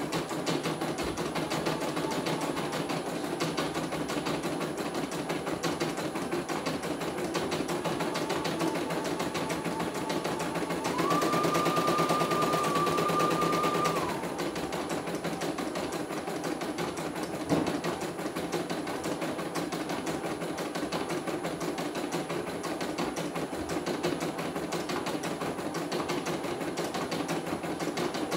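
Computerized embroidery machine stitching a design: rapid, even needle chatter over the motor's hum. For about three seconds near the middle it gets louder with a higher whine, as the machine speeds up. A single sharp click follows a few seconds later.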